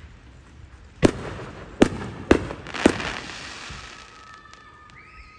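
Fireworks exploding: four sharp bangs within about two seconds, with echoing rumble trailing off after the last one.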